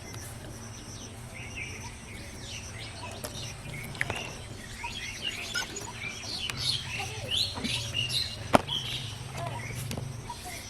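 Small birds chirping, many short rapid calls overlapping. A sharp click sounds about four seconds in and a louder one about eight seconds in.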